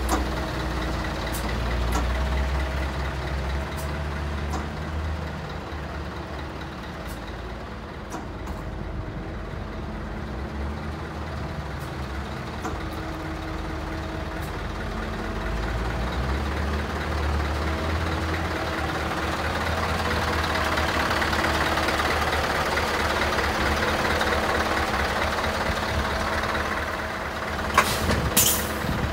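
Scania R164's 16-litre V8 diesel idling steadily, a continuous low rumble with a steady hum over it. A few sharp clicks near the end.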